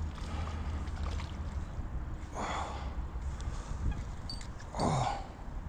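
Two short, breathy gasps from a person, about two and a half and five seconds in, over a low wind rumble on the microphone.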